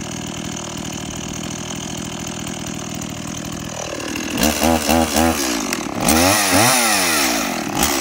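Stihl MiniBoss two-stroke chainsaw idling steadily, then, about halfway through, revved up and down in several quick blips and into a longer rev near the end.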